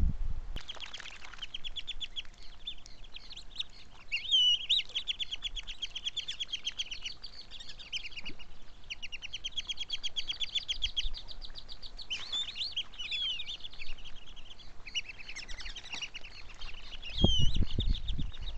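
Birds calling: long runs of rapid chattering notes broken by a few high, sliding whistles, with a low rumble near the end.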